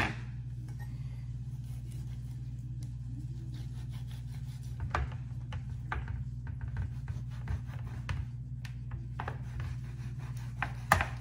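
A large kitchen knife cutting through a raw rack of lamb on a baking tray: a run of short rasping strokes, with the blade scraping and tapping on the pan, coming thick and fast from about five seconds in. A steady low hum runs underneath.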